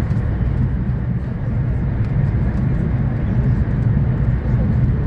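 Steady low rumble of a Renfe Alvia train running at speed, heard from inside the passenger cabin.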